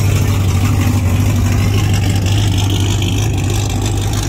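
A vehicle engine idling, a loud, steady low drone.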